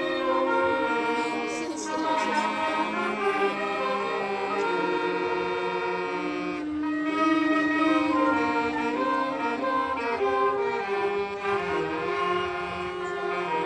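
A saxophone ensemble playing a tune together: several saxophones in harmony, holding long notes and moving from chord to chord.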